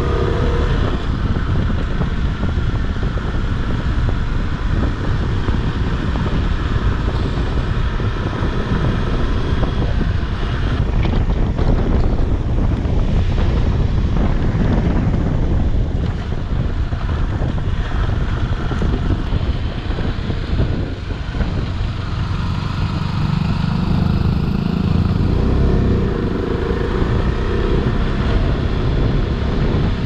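Single-cylinder adventure motorcycle running under way, with wind rushing over the microphone. The engine note swells for a few seconds about two-thirds of the way through.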